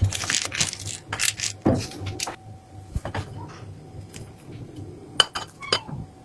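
Kitchenware being handled: a run of clinks, knocks and short scraping rustles in the first two and a half seconds, then a few sharp clicks near the end, over a low steady hum.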